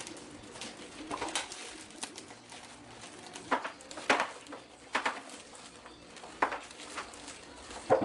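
A metal utensil clinking and scraping against a small ceramic bowl while puree is stirred: about five sharp clinks in the second half. A low cooing runs in the background.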